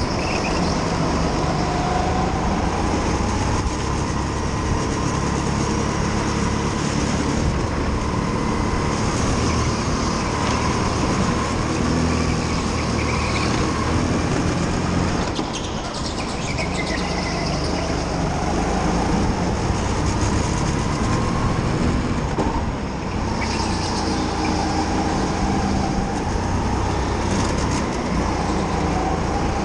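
Rental go-kart engine heard from an onboard camera on the kart, running under power as it laps, its pitch rising and falling with speed through the corners. It drops briefly about halfway through and again near three quarters of the way.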